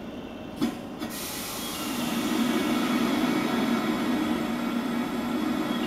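A 113-series electric train standing at the platform while it is readied for departure. A sharp click comes about half a second in. Then a steady hissing rumble from its onboard equipment builds up from about a second in and holds.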